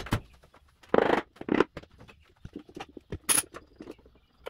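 Tools and a rag being handled and set down on a wooden-topped workbench: a few short scrapes and rustles with light knocks and clicks between them, the loudest about a second in.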